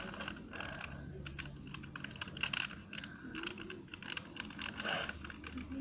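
Quick, irregular small plastic clicks and rubbing from hands working a stickerless 2×2 Rubik's cube being wiped clean.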